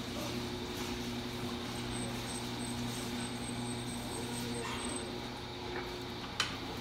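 Electric potter's wheel running steadily with a low motor hum while wet clay spins against a sponge; a single sharp click sounds near the end.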